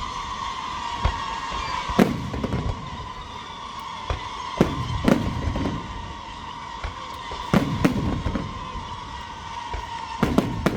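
Fireworks display: sharp booming bursts every one to three seconds, some in quick pairs, with crackling between them.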